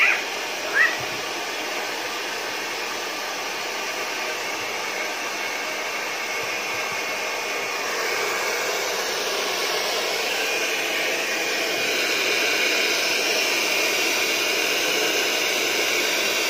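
Hand-held hair dryer blowing steadily, getting a little louder partway through. Two short high squeaks right at the start.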